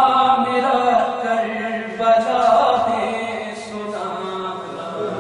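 A man chanting a Shia mourning lament unaccompanied, in long drawn-out melodic lines, growing softer in the second half.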